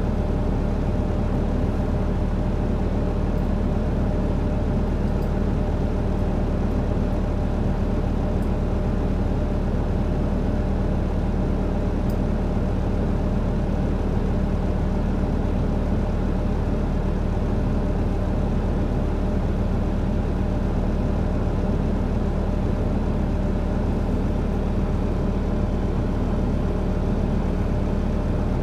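A Gillig BRT transit bus's Cummins L9 inline-six diesel idling, heard from inside the cabin: a steady low hum with a constant drone, unchanging while the bus stands still.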